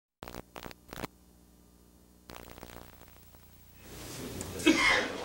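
Faint steady electrical hum with a few sharp clicks as the sound cuts in, then room noise rising and a person's voice near the end.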